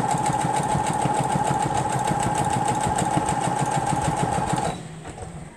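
Sewing machine stitching at a steady speed, its motor humming under a rapid, even beat of the needle. It stops near the end.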